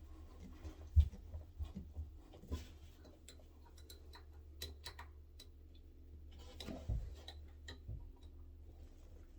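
Small screwdriver ticking and clicking against the release tab of a metal toilet paper holder as the holder is rocked up and down off its wall bracket. Faint irregular ticks, with a light knock about a second in and another near seven seconds.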